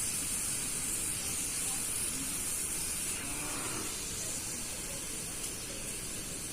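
Curry gravy boiling in a kadai, giving a steady hiss.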